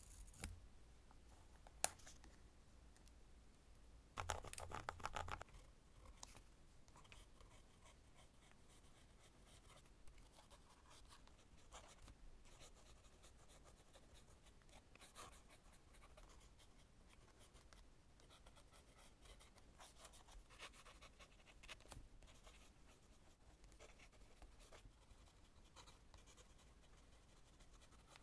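Lamy fountain pen nib scratching faintly across journal paper in many short strokes while writing cursive. Near the start there is a sharp click, then a louder burst of noise about four seconds in, before the writing begins.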